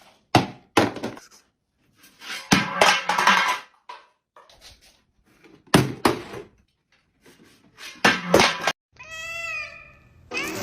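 Domestic cat meowing: several short knocks and noisy bursts, then one drawn-out meow about a second long near the end.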